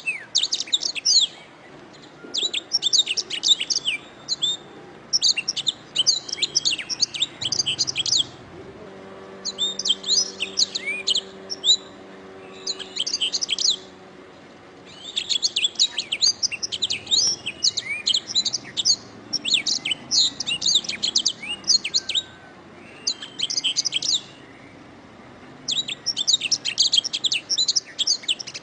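Domestic canary singing: rapid, high-pitched trills and chattering song phrases in bursts of one to three seconds, separated by short pauses.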